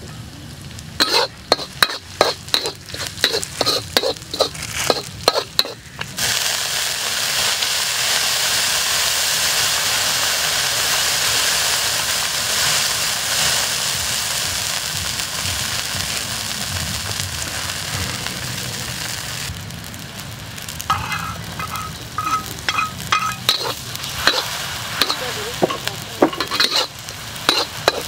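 Food stir-frying in a steel wok: a metal spatula clicking and scraping against the pan, then a loud, steady sizzle of garlic and chilies frying in hot oil for about thirteen seconds. Near the end the spatula clicks and scrapes again over a lighter sizzle.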